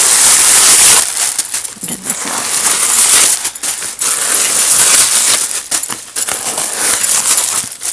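Loud crinkling and rustling of white stuffing paper being pulled out from inside a leather backpack, a run of crackles with a few short breaks.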